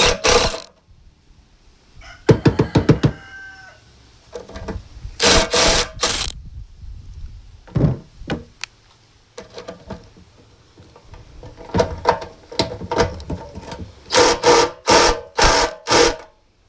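Irregular knocks and clanks of hand tools working on metal motorcycle parts, in bursts with pauses between, and a short ringing rattle about two seconds in.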